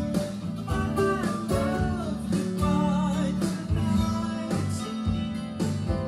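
Recorded rock song playing: a sung melody with vibrato over strummed guitars and a low D bass note held underneath.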